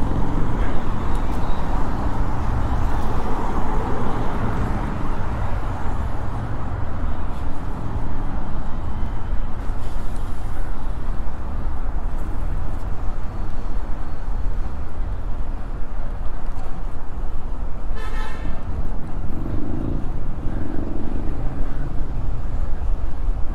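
Wind buffeting the microphone of a bike-mounted camera at riding speed, a steady low rumble with city traffic noise under it. A brief car-horn beep sounds about three quarters of the way through.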